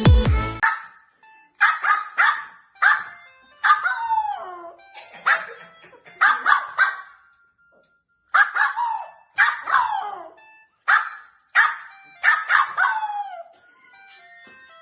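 Lhasa Apso puppy barking in short bursts, some barks drawn out into falling, howl-like yowls, a fearful reaction to a phone ringtone. Loud electronic music cuts off just as the barking begins.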